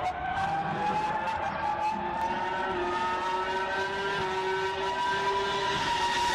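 Racing car engine running at high revs, its pitch climbing slowly and steadily.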